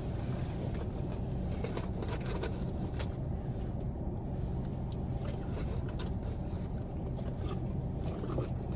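Car engine idling, a steady low hum heard from inside the cabin, with a few faint clicks.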